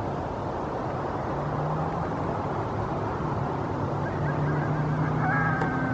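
Coyote chorus howling, with a high held, slightly wavering howl rising in near the end, over a guardian dog's low held howl, all against a steady background rush.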